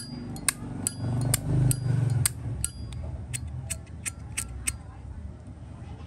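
Zippo lighter's lid being flicked open and snapped shut over and over: about a dozen sharp metallic clicks, some with a brief high ring, stopping near five seconds in. A low rumble swells in the background about a second in.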